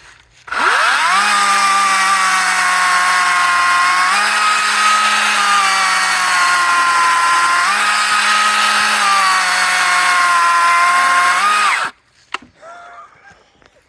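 Cat 60V DG631 18-inch cordless electric chainsaw running: its motor whine spins up about half a second in, holds with small shifts in pitch as the chain works through dead cedar, and cuts off suddenly near the end.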